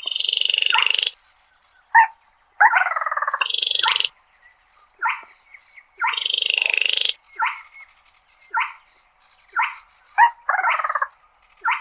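Small crake (quốc lùn) calling: dry, frog-like rattling calls about a second long alternate with short clipped notes, over and over.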